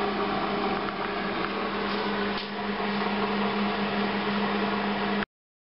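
Steady electric motor hum with a fan-like rushing noise, cutting off abruptly about five seconds in.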